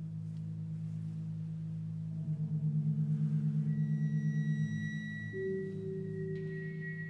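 Held drone tones of contemporary ensemble music: a low drone that pulses quickly for a few seconds, joined by a thin high steady tone about halfway through and a middle tone near the end.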